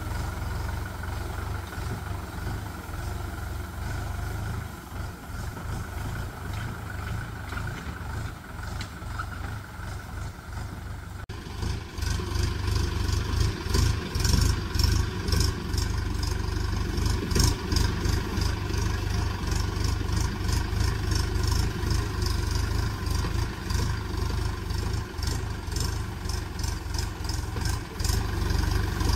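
Diesel tractor engine running steadily. About eleven seconds in, the sound cuts abruptly to a louder stretch with a rapid clatter on top of the engine.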